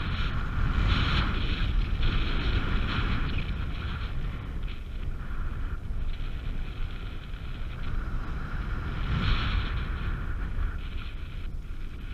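Wind rushing over the camera's microphone during paraglider flight: a heavy, buffeting low rumble with an uneven hiss on top.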